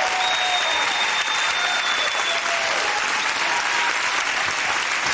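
Studio audience applauding and cheering, with a long, high whistle about the first two seconds and shorter whoops through it.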